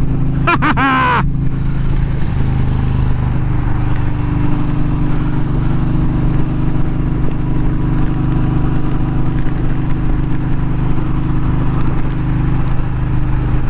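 Indian Challenger's V-twin engine running at a steady cruise on a wet highway, its pitch hardly changing, under a steady hiss of wind and wet road noise.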